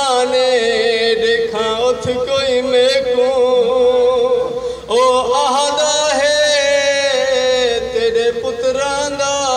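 A man chanting a Punjabi masaib lament in long, wavering held notes through a microphone, with a short break for breath about five seconds in.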